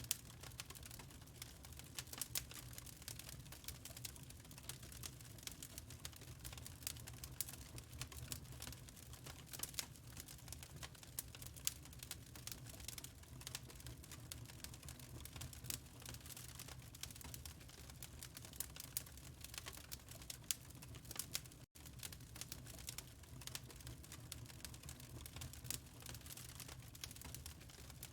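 Wood fire crackling in a fireplace: irregular sharp pops and crackles over a low steady hum, with a split-second dropout about two-thirds of the way through.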